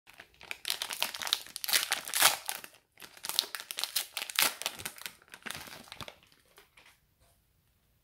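Wrapper of a Panini Score trading-card value pack crinkling and tearing as it is ripped open by hand. The sound comes in two bouts with a short break just before three seconds in, and dies away about seven seconds in.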